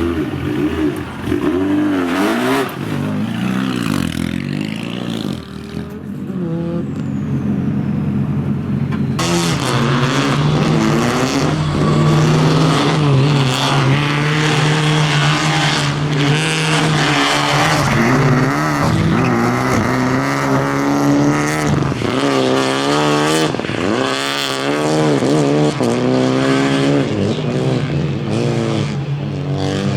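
Rally car engine revving hard, its pitch climbing and dropping again and again as it accelerates and shifts. The sound changes abruptly about nine seconds in.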